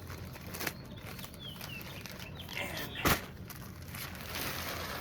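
Plastic topsoil bag being handled as it is opened, with scattered crinkles and clicks and a sharp crackle about three seconds in.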